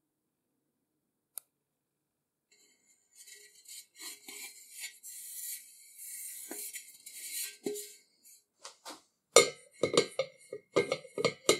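Hands handling the metal pan of an antique kitchen scale: a scraping, rubbing sound of skin and fingers on metal, then near the end a quick run of sharp metallic clanks and clinks as the pan and the scale's top part knock together on the wooden bench.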